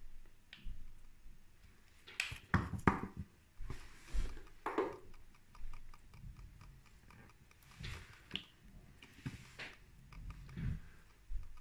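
Faint, scattered knocks, clicks and rustles of hands handling equipment, with a small cluster of knocks a couple of seconds in and single ones after that.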